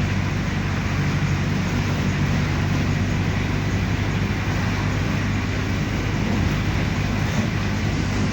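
Mercedes-Benz OF-1519 BlueTec 5 bus's diesel engine running steadily at an even pitch, with road noise.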